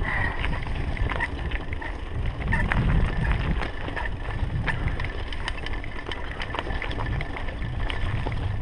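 Mountain bike riding over a dirt woodland trail: a steady low rumble of the tyres and wind on the microphone, with frequent small clicks and rattles from the bike.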